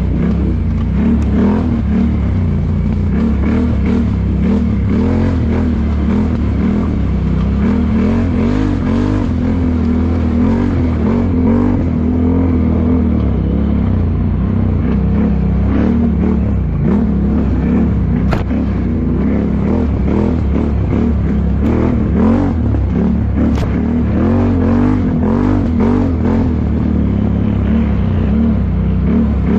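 ATV engines revving hard in an off-road mud race, their pitch rising and falling again and again, over a steady low rumble.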